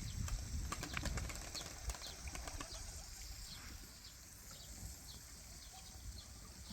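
A flurry of bird wing flaps over the first two to three seconds, with short high chirps of small birds repeating throughout and a low rumble that fades away.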